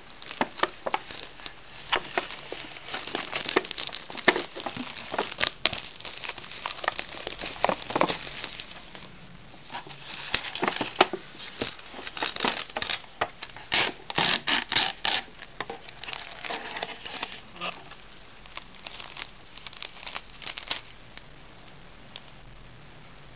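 Thin plastic shrink-wrap on a cup noodle crinkling and tearing as it is pulled off by hand, followed by the lid being peeled back and plastic seasoning packets rustling. The irregular crackling stops a couple of seconds before the end.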